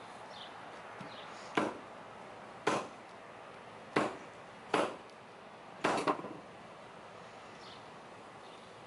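Wooden axe handle knocked butt-end down onto a block five times, about a second apart, with the last knock doubled. The knocks drive the axe head further onto the handle to seat it.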